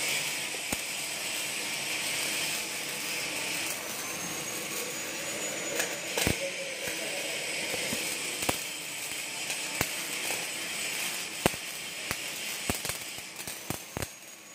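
MIG (GMAW) welding arc running on steel pipe: a steady hiss with scattered sharp pops of spatter, dying down near the end.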